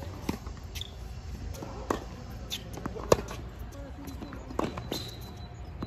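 Tennis ball struck by rackets and bouncing on a hard court during a rally: a series of sharp pops about one to one and a half seconds apart, the loudest about three seconds in.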